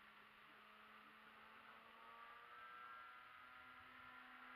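Faint whine of an electric-powered RC model aerobatic plane's motor and propeller in flight, the whine shifting slightly in pitch and growing louder from about two seconds in.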